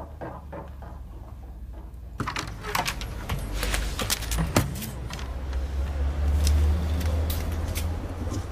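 Street sound: a vehicle's low rumble swells to its loudest about six to seven seconds in and then eases, with scattered sharp clicks and a jangle like keys.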